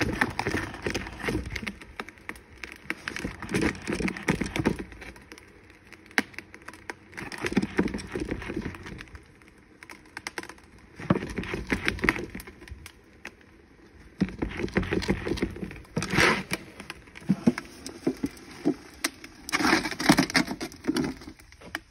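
Plastic esky being shaken and rocked on a steel bench, with a drink can knocking and rolling about inside it in liquid nitrogen. The clattering comes in irregular bouts every few seconds, with quieter gaps between.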